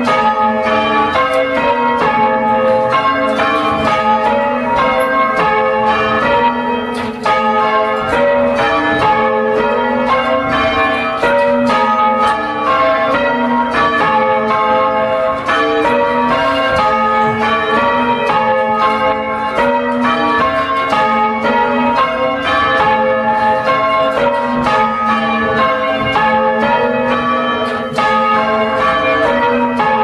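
A ring of four church bells being rung in changes, the bells struck one after another in a steady, even rhythm, heard from the ringing chamber below.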